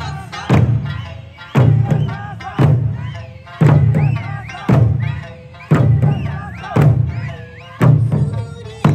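Eisa drummers striking large Okinawan barrel drums (ōdaiko) together, one heavy beat about every second, nine strokes in all. Between the strokes a singer's Okinawan folk song with wavering held notes plays over the loudspeakers.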